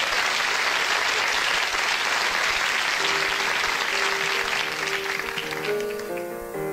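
Audience applauding, the clapping fading near the end as a band starts a slow song's intro: a held note comes in about three seconds in, then a run of changing notes over the last second or so.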